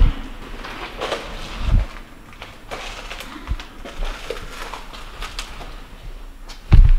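Scattered knocks, clicks and rustles of someone moving about and handling things in a cluttered room, with heavy low thumps at the start, about two seconds in and near the end.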